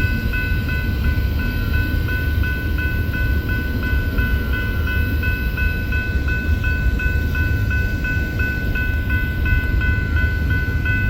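A train passing with a steady low rumble, while a bell rings over it in a quick, even rhythm of about three strokes a second.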